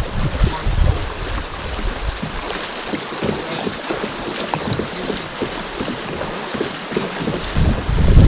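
Wind buffeting the microphone, strongest at the start and again near the end, over a steady hiss of water sprinkled with small ticks and splashes.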